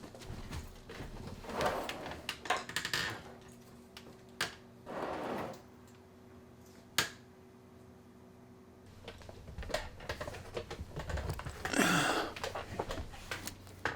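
Objects being handled: scattered clicks and knocks with a few short rustles, and one sharp knock about seven seconds in.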